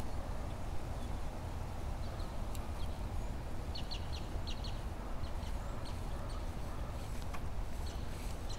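Outdoor ambience: a steady low rumble with scattered short, high bird chirps, a small cluster of them about halfway through.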